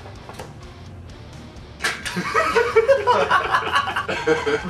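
Several young men break into laughter about two seconds in, after a quieter pause.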